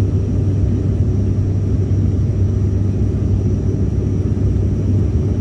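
Cabin drone of an ATR 72-600 turboprop in cruise: a steady low hum from its twin Pratt & Whitney PW127M engines and propellers, with a faint thin high whine above it.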